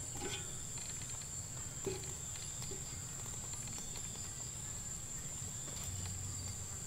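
Steady high-pitched drone of insects, with a few faint small clicks over it.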